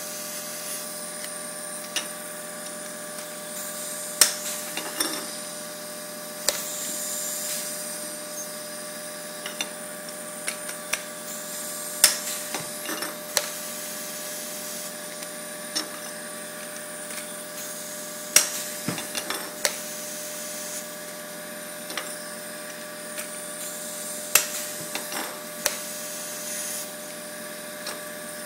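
Dafra DRP760 air-hydraulic blind rivet tool setting 1/4-inch steel blind rivets: a steady air hiss and hum from the tool, broken every few seconds by a sharp snap as a rivet's mandrel breaks off.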